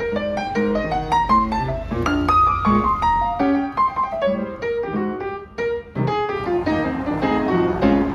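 Background music: a piano playing a quick, busy line of short notes and chords, dropping away briefly about five seconds in before picking up again.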